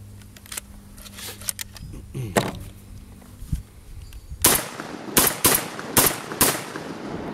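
Lion X6 semi-automatic shotgun being loaded, with scattered metallic clicks, then fired five times in quick succession, roughly half a second apart. The shots are heavy game loads fired to break in the action.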